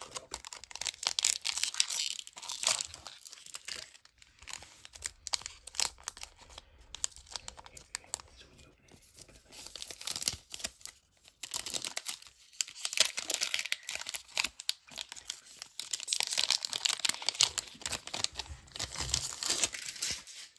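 Wrapper of a Topps baseball card pack being torn open and crinkled, then the cards inside being handled; a dense run of sharp crackles and rips with brief quieter gaps.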